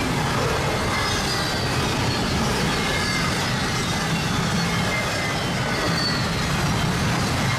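Union Pacific double-stack intermodal freight train passing at speed: a steady rumble and rush of steel wheels on rail, with faint high squeal tones from the wheels.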